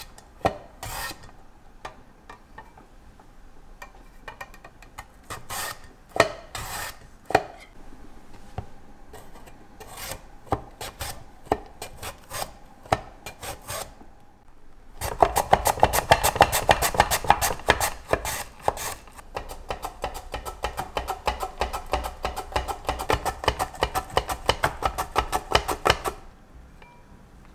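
Vegetables sliced on a handheld mandoline slicer into a glass bowl: radishes in separate rasping strokes for about the first half, then a cucumber in a fast, steady run of strokes that stops shortly before the end.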